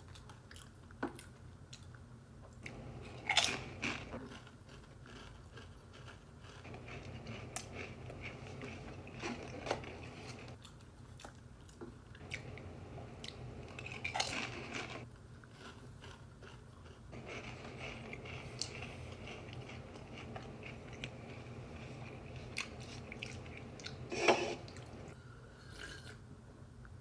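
Wavy Pringles potato crisps being bitten and chewed, with several sharp crunches spread through the chewing, the loudest about three seconds before the end, over a faint steady low hum.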